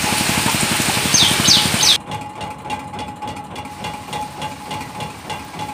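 Fishing boat's engine running under way, with wind and water hiss; three short, high, falling chirps sound just before it cuts off abruptly about two seconds in. After the cut, a much quieter scene holds a faint steady hum and light ticking.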